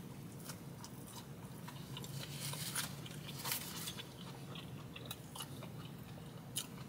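A mouthful of breaded chicken-tender slider in bourbon BBQ sauce being chewed, with faint, irregular crunches of the breading, a little denser around the middle.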